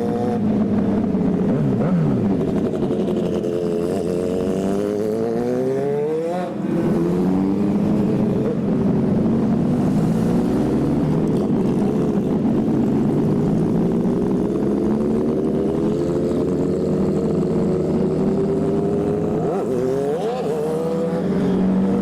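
Motorcycle engine running at road speed, rising in pitch several times as it accelerates, with a brief drop in level about six and a half seconds in.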